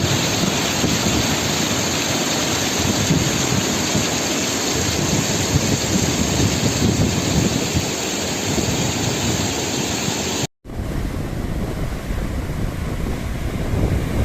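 Waterfall: a steady rush of falling water. About ten seconds in it cuts out for an instant and comes back duller and deeper.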